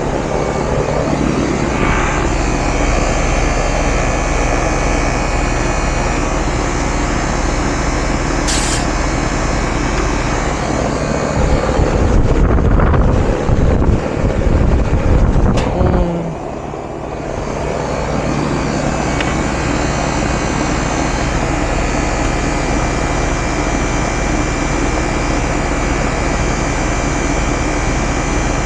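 A 30-year-old Ruud R22 outdoor unit running steadily, its compressor and condenser fan making a loud, even hum. There is a sharp click about eight seconds in, and from about twelve seconds a louder rumbling for roughly four seconds that cuts off suddenly.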